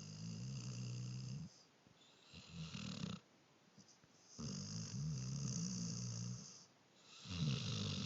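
Snoring: four snores with short quiet gaps between them, each a low buzzing rattle. The third is the longest, about two seconds.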